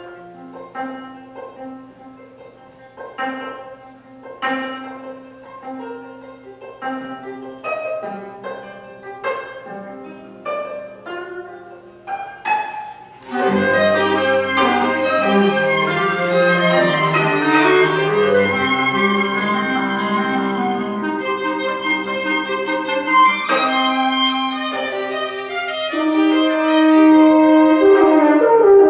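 Contemporary chamber ensemble with 25-string gayageum. For about the first 13 seconds, sparse plucked string notes ring and decay over a held low note. Then the full ensemble of bowed violin and cello with winds and horn enters loudly in sustained, dense chords.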